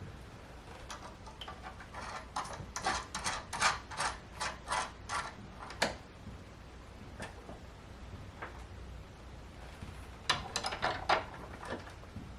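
Ratchet wrench clicking in quick runs, about four clicks a second, while a 12 mm nut is turned, then a shorter run near the end.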